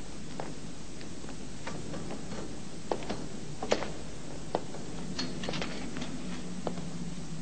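Footsteps: a dozen or so irregular taps and scuffs over a steady background hiss, with one sharper tap a little past the middle.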